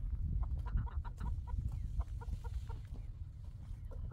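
Chickens clucking: a quick run of short calls, thinning out toward the end, over a steady low rumble.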